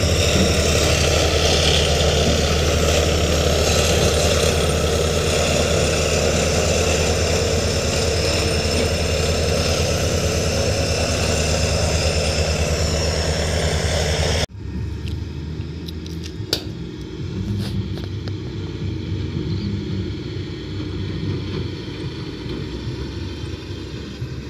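Tata tipper truck's diesel engine running steadily while its emptied tipper body is lowered. About halfway through it cuts off abruptly to a quieter, more distant truck engine with a few sharp knocks.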